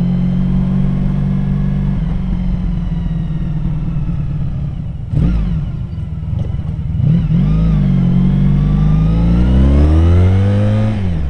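Honda VF1000R's V4 engine under way, its note breaking off about five seconds in, then accelerating with a rising pitch before easing off at the end. Running on VF1000F carburetors with 145 main jets, it pulls cleanly with no hesitation at part throttle.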